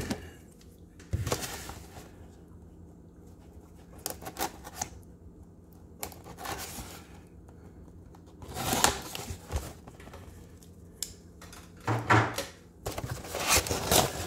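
A cardboard shipping box being opened: a pocket knife cuts through the packing tape, and the cardboard flaps rustle and are pulled open. It comes as scattered short scraping bursts and clicks with quiet gaps between them.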